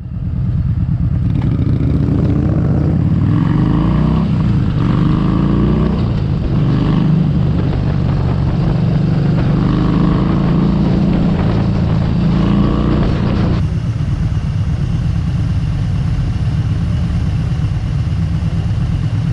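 Yamaha 950 V-twin motorcycle engine running under way, its pitch rising and falling with the throttle, then abruptly turning steadier about two-thirds of the way through.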